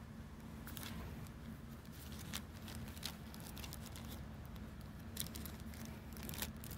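Faint crinkling of a thin plastic zip-lock bag and rustling of a cloth pouch as they are handled, with a few short sharp crackles spread through it over a low steady background hum.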